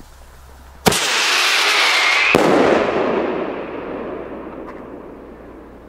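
ABA Rattlebang fire pot going off: a sharp launch bang about a second in, a loud rattling whistle as the shell climbs, then a heavy report about a second and a half later that echoes away over the following seconds.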